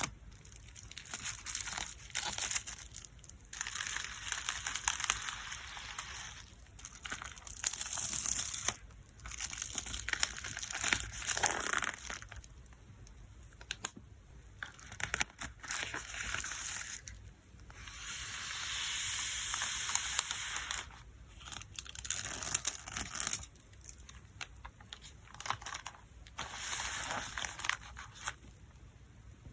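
Plastic and paper packing materials crinkling and rustling in irregular bursts as photocards are packed, with a few short tearing sounds.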